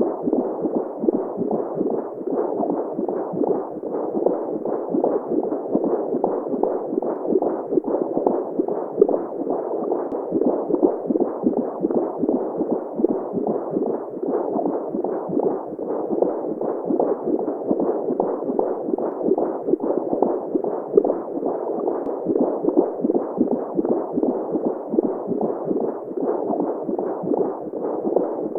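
Womb sound for baby sleep: a steady, muffled whooshing noise with nothing above the middle range, pulsing rapidly and unevenly, the whole way through.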